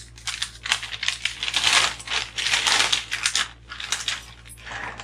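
A brown paper bag crinkling and rustling in irregular bursts as a hand rummages inside it, loudest in the middle and stopping at the end.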